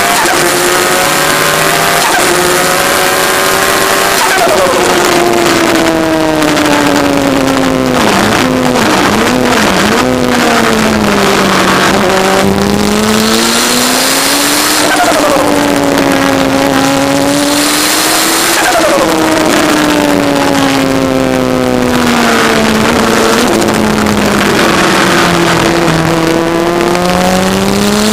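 Turbocharged Kawasaki ZX-10R inline-four motorcycle engine in an MK Indy kit car, driven hard, its pitch rising and falling again and again as it revs and eases off. Two short spells of hiss come in about halfway through.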